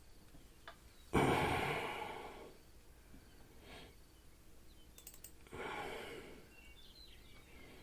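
A man breathing out heavily into a close microphone: two long sighing exhales, the first louder, starting about a second in, the second fainter, about five and a half seconds in.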